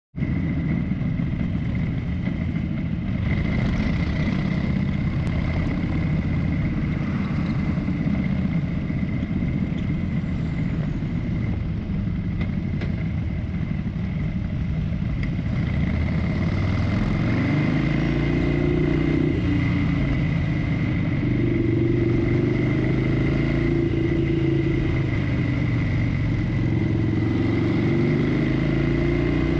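Harley-Davidson Forty-Eight's air-cooled 1200 cc V-twin running while the bike is ridden in town traffic. Its note rises and falls with the throttle, more clearly in the second half.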